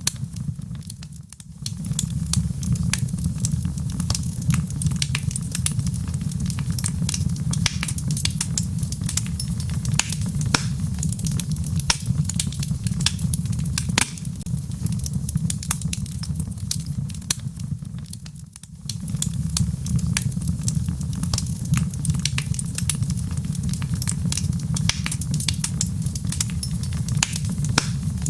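Wood logs burning in a fireplace: a steady low rumble of flames with frequent sharp crackles and pops. The sound dips briefly twice, about a second in and again after about eighteen seconds.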